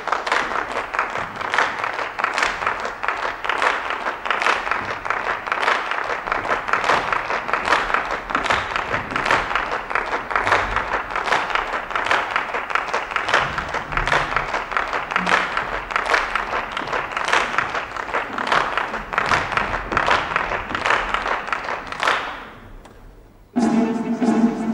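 Many people clapping in unison to a steady beat, fading out near the end. Orchestral music cuts in abruptly just before the end.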